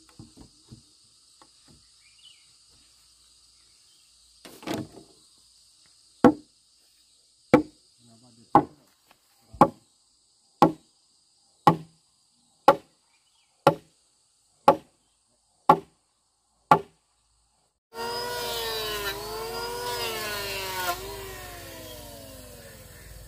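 Blows of a tool on wood, eleven strikes at about one a second, over a steady high insect drone. About eighteen seconds in, a motor starts abruptly and revs up and down, then slowly winds down.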